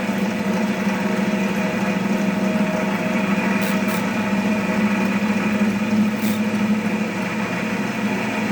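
Cast cotton candy machine running, its spinner head turning with the melted sugar to spin floss: a steady motor hum, with a few light ticks around the middle.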